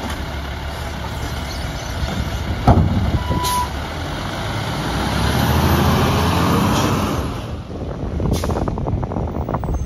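New Way Sidewinder automated side-loader garbage truck on a Peterbilt chassis, its diesel engine running while the arm sets the emptied cart back down, with a single bang about three seconds in. The engine then revs with a rising whine for a couple of seconds, and a short hiss of air comes near the end.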